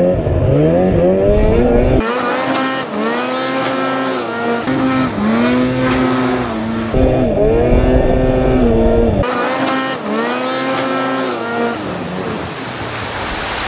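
Snowmobile engine revving hard at full throttle, its pitch climbing and dropping again and again as the sled accelerates and skips across open water. Toward the end a rushing hiss of spray rises over the engine.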